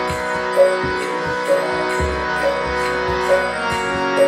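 Kirtan music with no singing. A held, droning chord sounds under drum strokes and high jingling on the beat, in a steady rhythm of about one accent a second.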